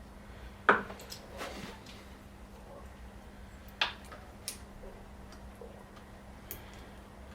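A handful of separate sharp clicks and clinks of small hardware (M6 Allen bolts, washers and tools) being handled while a bracket is fitted to a motorcycle's rear mudguard assembly, the loudest just under a second in, over a faint steady hum.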